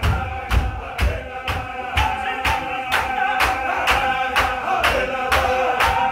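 A large men's group chanting a Qadiri Sufi zikr (dhikr) in a steady, droning line, with a sharp beat about twice a second kept by the men moving together in a circle.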